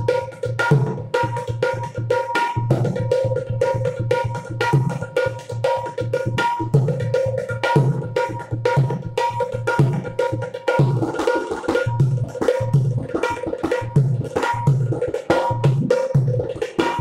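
Dholki, a two-headed Indian folk hand drum, played solo at speed: rapid ringing strokes on the small treble head over repeated deep strokes on the bass head.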